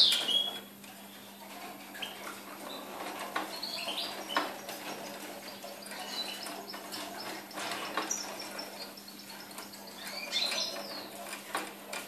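Young caged European goldfinch singing quietly: soft, scattered twittering notes and short chirps, with a couple of sharp clicks between phrases.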